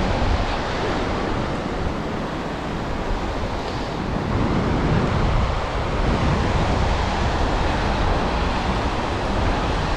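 Ocean surf washing in over the shallows, a steady rushing hiss, with wind buffeting the microphone as a low rumble.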